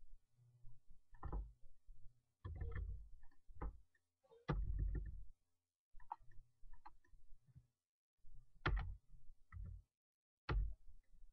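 Computer keyboard keys and mouse buttons clicking in small scattered clusters, with a louder dull thump about halfway through.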